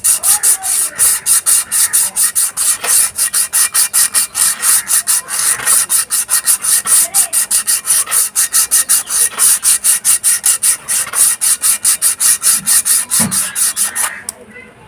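Sandpaper rubbed back and forth by hand against the rusted braking surface of a Yamaha Fascino scooter's rear brake drum, in quick even strokes of about five a second that stop near the end. It is scouring off the rust that kept the brake from gripping properly.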